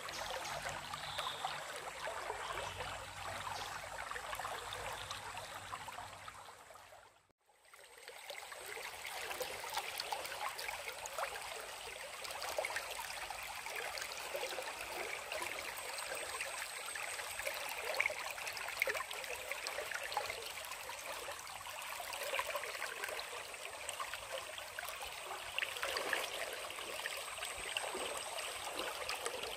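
Stream water flowing steadily, heard as an even rushing noise. It fades out briefly about seven seconds in, then comes back, with a faint steady high tone behind it.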